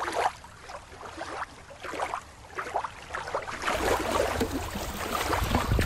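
Water lapping and splashing, with irregular small splashes and trickles. It is quieter for the first few seconds, then fuller and louder from about four seconds in, when it is the sound of shallow water at a rocky shoreline.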